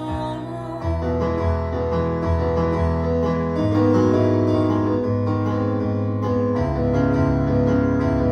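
Instrumental break in a live solo song: sustained accompaniment chords with no singing, a new bass note coming in about a second in and the chord changing every second or two.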